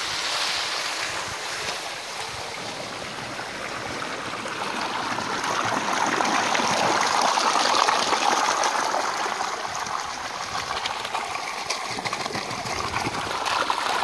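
Water gushing out of a plastic pipe and splashing into a rusty steel trough: a steady rush of pouring water that grows louder around the middle.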